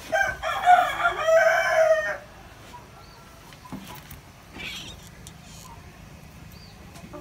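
A rooster crowing once, a single loud call lasting about two seconds.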